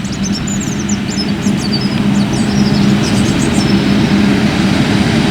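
Self-propelled forage harvester chopping maize and blowing it into a trailer alongside: a steady engine drone with a rushing hiss over it. Faint high chirps come and go above it.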